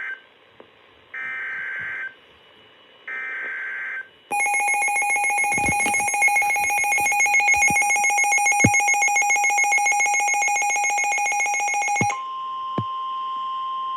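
NOAA Weather Radio alert on a Midland WR400 weather radio. First come one-second buzzy SAME digital header bursts, the end of one and then two more, a second apart. Then a loud, rapidly pulsing two-tone alarm runs for about eight seconds and gives way to a steady single warning tone near 1 kHz, with a few low thumps along the way.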